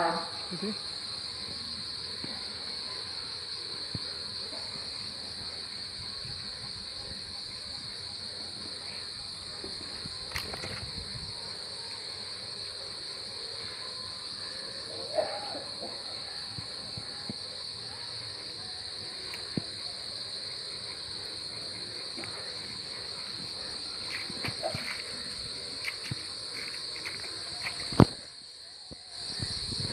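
Crickets and other night insects chirring in a steady high trill, with scattered small clicks and rustles. A sharp knock comes near the end, after which the insect sound briefly drops away.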